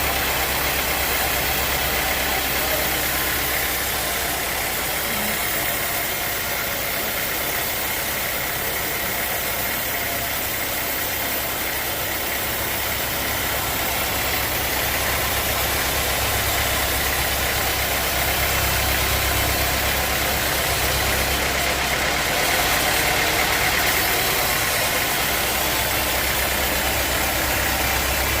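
Sawmill machinery running steadily: a motor's low rumble under a continuous high, even whine, as of a bandsaw mill at work on a log.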